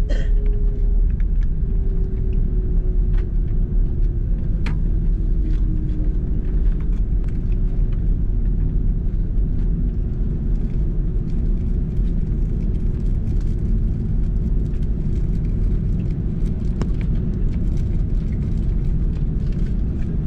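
Airbus A330-300 cabin noise while taxiing after landing: a steady low rumble from the engines at idle and the undercarriage rolling, with a faint hum and a few light clicks and rattles.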